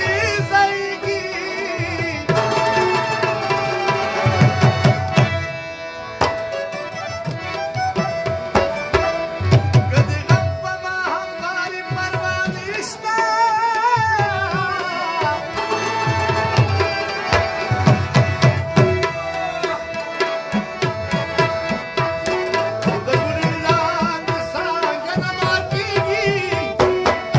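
Live Pashto folk music: a harmonium holds a steady drone under its melody while a tabla is played with quick, dense strokes and repeated booming bass strokes. A man's voice sings a wavering phrase over it in the middle.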